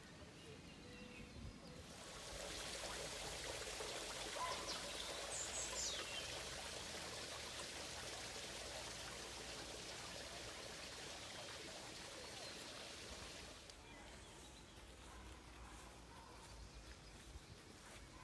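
Running water of a stream, a steady rushing hiss that swells up about two seconds in and fades away near fourteen seconds.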